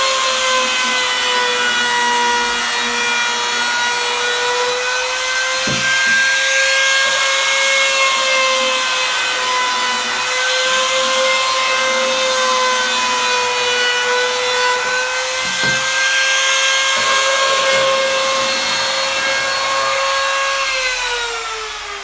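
Handheld trim router running at full speed, its bit cutting along the corners of wooden legs to round off the sharp edges; the steady high motor whine dips and rises slightly as the cut loads it. Near the end the router is switched off and winds down with a falling whine.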